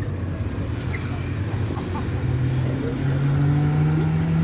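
Car engine running, its pitch climbing slowly and the sound getting louder from about halfway through as the car accelerates.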